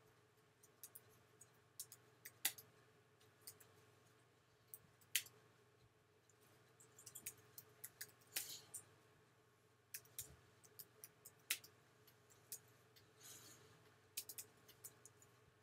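Slow, irregular typing on a computer keyboard: single key clicks spaced out at uneven intervals, over a faint steady electrical hum.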